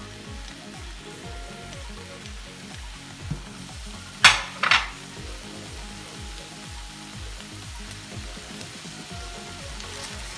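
Diced vegetables sizzling as they are sautéed in a stainless pan and stirred with a spatula. Two sharp clatters of kitchenware against the pan come about four seconds in, half a second apart, and they are the loudest sounds.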